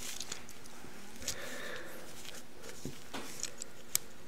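Scattered small plastic clicks and taps from loose Shengshou 4x4 cube pieces being handled and set down on a table, the sharpest click near the end.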